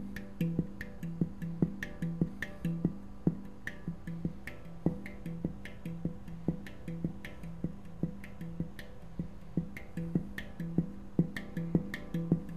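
Celestial Sound steel handpan in E Ostara tuning played with the hands: a steady run of quick finger strikes, about three to four a second, over ringing low notes.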